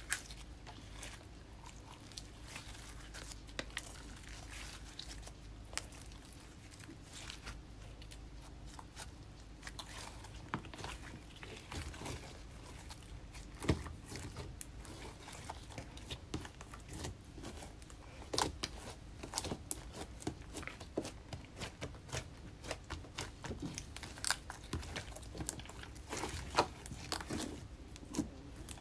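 Pink slime with crushed makeup mixed in being kneaded, folded and squeezed by hand: sticky squishing with many small clicks and crackles, which grow busier about halfway through.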